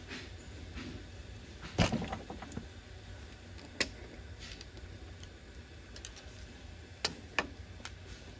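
Hard objects being handled: a loud clunk with a short rattle about two seconds in, a sharp click near four seconds and two more close together near seven seconds, over a steady low hum.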